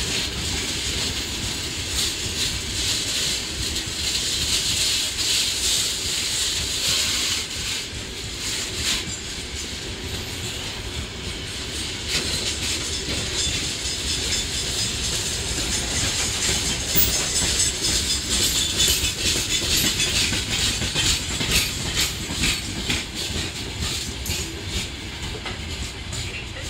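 Freight train of four-axle open gondola wagons rolling steadily past. The wheels clatter over the rail joints above a constant low rumble and a high hissing squeal from wheel on rail.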